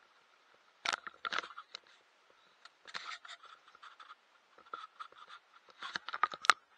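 Irregular scraping, clicking and rustling from something rubbing close to the microphone, in short clusters with gaps between, busiest near the end, over a faint steady hum.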